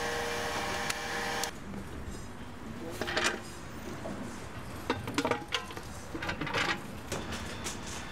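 A steady hum stops abruptly about a second and a half in. After that come scattered knocks and clatters as a terracotta plant pot and a round metal bistro table are handled and set down on cobblestones.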